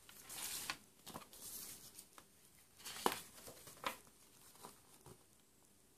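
Faint handling of a CD's paper lyrics booklet and plastic jewel case: a soft paper rustle, then a few sharp clicks and taps, dying away near the end.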